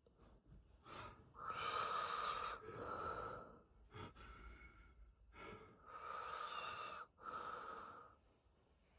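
Passed-out drunk man breathing heavily in his sleep, with loud rasping breaths in two runs: one about a second in, one about halfway through. There is a short sharp catch in between, about four seconds in.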